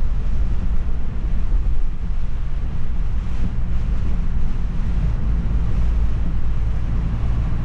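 Wind rushing over the microphone of a moving vehicle: a loud, steady low rumble with no clear engine note.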